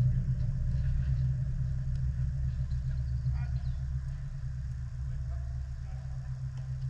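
A steady low rumble, easing slightly about halfway through, with faint voices in the background.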